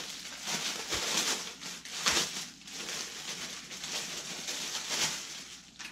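Clear plastic bag and packaging rustling and crinkling as it is handled, with louder crackles about one, two and five seconds in.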